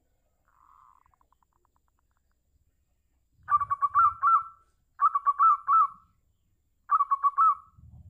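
Zebra dove (perkutut) calling: three phrases of quick staccato coos, each under a second long and about a second and a half apart, preceded about half a second in by a softer short rattle.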